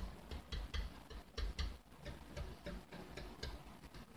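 A wire whisk clicking against the side of a mixing bowl while whisking liquid egg-custard filling: a fast, even run of light clicks, about three or four a second, with soft low knocks, dying away near the end.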